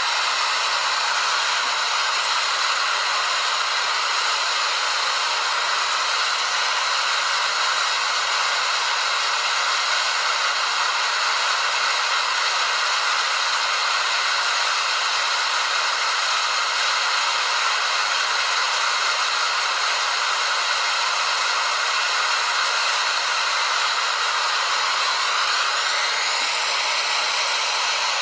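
Waterfall: a steady, even rush of falling water, a dense hiss with little low rumble.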